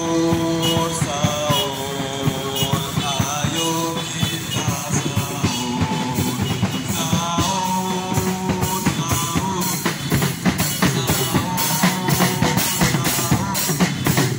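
Loud music played over a mobile sound system: a held, wavering melody over a drum-kit beat with bass drum and rimshots, the drumming getting busier in the second half.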